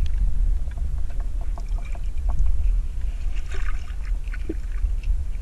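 Steady low rumble around a boat sitting on the water, with light water sounds and scattered faint clicks.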